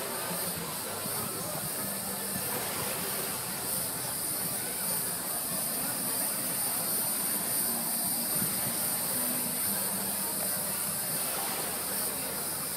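Steady hiss of background noise with faint distant crowd voices mixed in.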